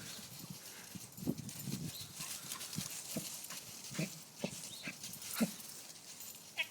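A dog making short noises at irregular intervals, about one or two a second.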